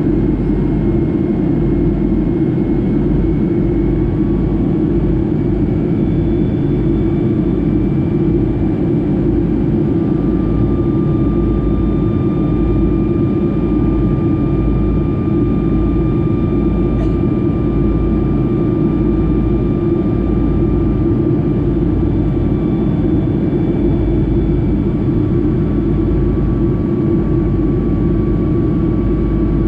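Cabin noise of a Boeing 757-200 in flight: the Rolls-Royce RB211 turbofans running steadily as a deep, even drone, with a few faint high tones that drift slightly in pitch.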